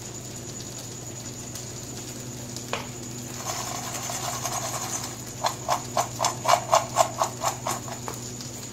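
Roasted makhana (fox nuts) rattling in a stainless steel bowl as the bowl is shaken to mix in chaat masala: a single click about three seconds in, then a rattle that turns into even shakes about four a second over the second half.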